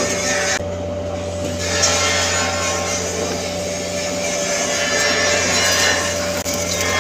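Stick (SMAW) welding arc crackling and frying on the capping pass of a 10-inch carbon steel pipe. It stops for about a second shortly after the start, then strikes up again and runs steadily.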